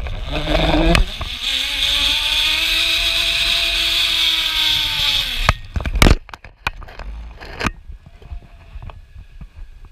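Zip line trolley pulley running along a steel cable: a loud whirring hum whose pitch rises and then falls over about five seconds. It stops suddenly and is followed by a few sharp metal clanks as the rider reaches the platform.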